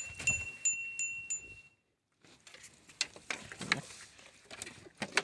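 A metal chime rings with a steady high tone and quick high ticks, then stops about two seconds in. Scattered knocks and rustling follow over the next few seconds.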